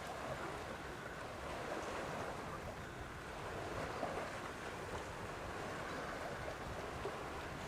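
Steady wind and lapping water noise, with wind buffeting the microphone.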